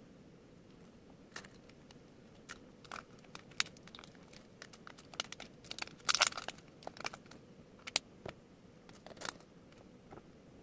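Packaging being torn open and crinkled by hand: irregular rips and crackles, the loudest tear about six seconds in, with small clicks as parts are handled.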